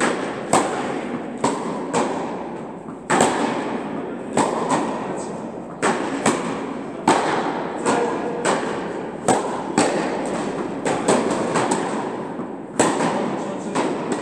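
Tennis balls being struck by racquets and bouncing on the court during a groundstroke rally: a rapid, irregular run of sharp pops, several every couple of seconds. Each pop rings out in the echo of a large tennis hall over a steady background noise.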